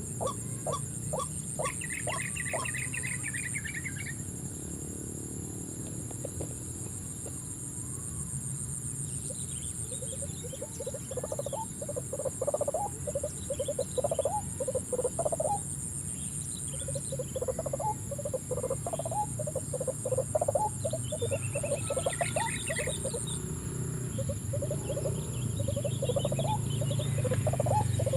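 Steady high-pitched insect chorus with a pulsing trill, over which bursts of short, rapidly repeated animal calls come and go, thickest in the second half.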